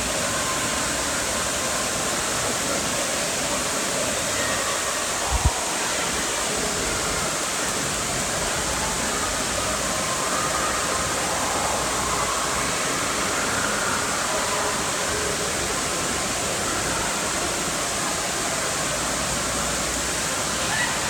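Steady rushing of water pouring out of a tube waterslide's exit into the splash-down pool. A single brief thump sounds about five seconds in.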